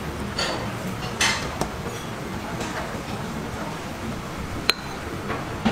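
Dishes and utensils clinking at a table, a few light knocks and one sharp, ringing clink about four and a half seconds in, over a steady background hiss.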